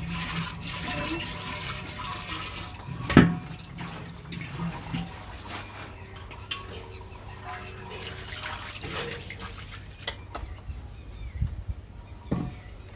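Tap water splashing over an earthenware water pot as it is rinsed and rubbed by hand, with dripping and small clinks. There is a sharp knock about three seconds in and another near the end.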